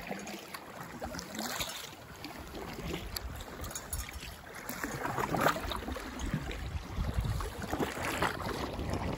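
Kayak paddle blades dipping and splashing in river water as a double packraft is paddled along, with water lapping at the raft's tubes.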